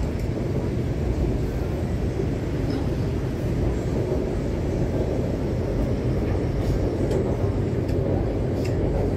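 MTR Kwun Tong Line C-Train running between stations, a steady rumble of wheels and traction heard from inside the car, with a few faint clicks near the end.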